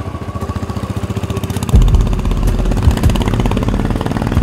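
Royal Enfield motorcycle engines running with a rapid, even beat, growing louder as the bikes ride up and past through a bend. Heavy low thumps come in from about two seconds in.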